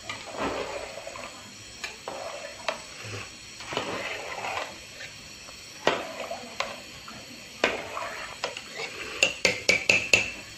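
Long metal spoon stirring rice in a large aluminium pot of chicken stock: liquid sloshing, with the spoon scraping and clinking against the pot. Near the end comes a quick run of sharp metal taps.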